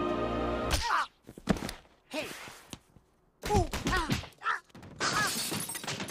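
Orchestral logo music cuts off about a second in, giving way to a cartoon scuffle: a string of short squeaky grunts and yelps mixed with thuds and knocks, with a brief pause in the middle.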